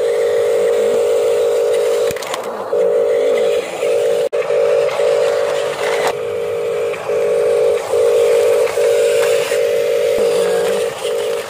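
Small electric drive motor and gearbox of a toy RC dump truck whining at one steady pitch as it drives, switching on and off in stretches about half a second to two seconds long with brief breaks between.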